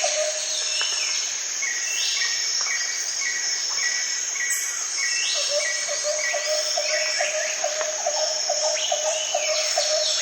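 Jungle ambience sound effect: a steady high insect drone under layered bird calls — a run of short evenly spaced notes, a lower pulsing call that repeats a few times a second, and falling sweeping calls.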